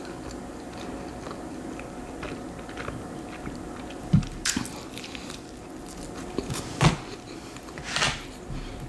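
Close-miked biting and chewing of a slice of Texas toast, with a few sharper, louder mouth clicks about four, seven and eight seconds in, over a faint steady hum.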